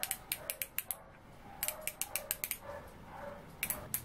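Front drag knob of an Albatroz Fishing Curió 30 spinning reel being turned by hand, clicking sharply in three quick runs. This is its click-stop front drag adjustment, which moves one notch per click.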